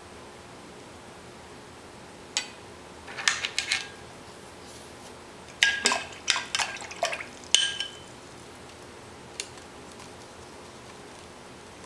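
Paintbrush clinking against a glass water jar while being rinsed: several quick clusters of taps, a few of them ringing briefly, then one last single tap.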